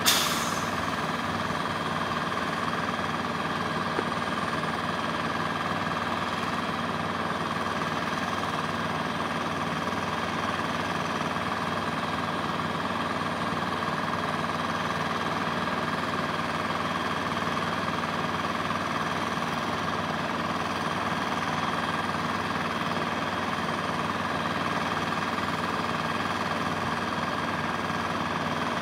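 An engine idling steadily, a constant drone with a few fixed tones in it. A sharp click right at the start.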